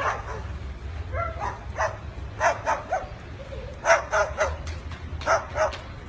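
White cockatoo giving dog-like barks in quick pairs, repeated about every second and a half, over a steady low rumble.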